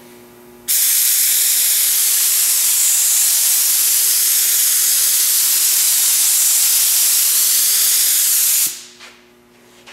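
DeVilbiss Finishline gravity-feed spray gun spraying a light coat of acrylic paint: a loud, steady hiss of compressed air and atomised paint that starts sharply about a second in and cuts off near the end, after about eight seconds.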